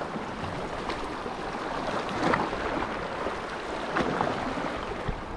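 Seawater washing and lapping with wind on the microphone, and a few faint splashes.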